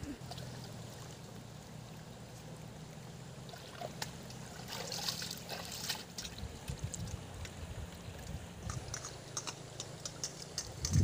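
Snails being washed in a steel bowl in a shallow stream: water sloshing and trickling as the bowl is dipped and swished, with light clicking in the last few seconds.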